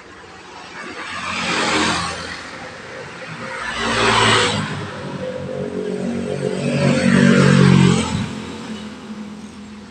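Motor vehicles passing by on a road, three in turn, each engine rising and fading away.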